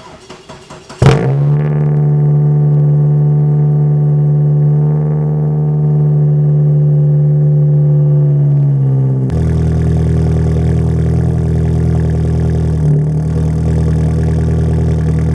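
Third-generation Mitsubishi Eclipse engine cranking briefly, catching about a second in, then running at a steady idle. About nine seconds in the running sound turns rougher and fuller.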